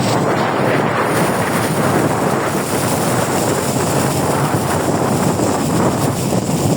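Loud, steady wind rush on the microphone aboard a moving tour boat, over the running of the boat.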